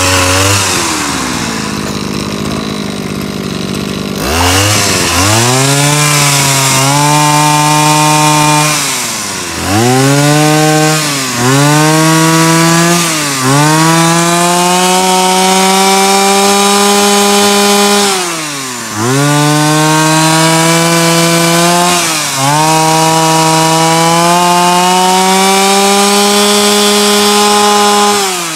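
Mitsubishi TB20 two-stroke brush cutter engine on a no-load test run. It idles for a few seconds, then is revved up and held high about half a dozen times, the pitch climbing with each throttle opening and dropping back briefly toward idle between. The higher the throttle, the sharper it gets.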